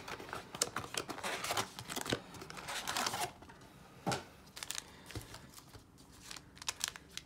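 Cardboard blaster box of trading cards being torn open by hand, with crinkling of the wrapped card packs as they are pulled out. After about three seconds it thins to occasional light taps and rustles as the packs are set down on the table.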